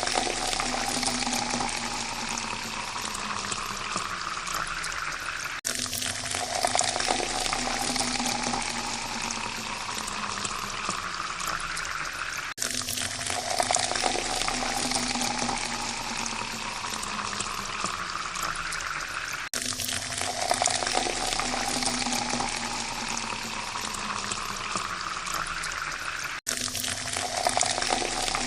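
Water pouring into a glass, its pitch rising steadily as the glass fills. The same pour repeats about every seven seconds, each restart beginning with a sudden cut.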